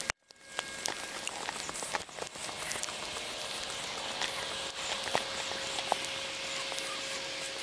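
Rain falling steadily, with scattered sharp ticks of drops close to the microphone.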